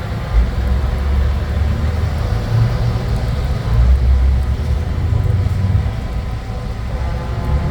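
Deep, uneven engine rumble of vehicles in a light parade.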